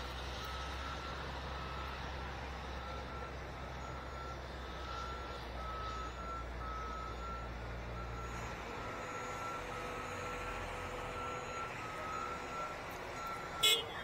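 Backup alarm on heavy construction equipment beeping in an even, repeating pattern over the low rumble of a running engine. The rumble drops away about two-thirds of the way through, and a single sharp knock comes near the end.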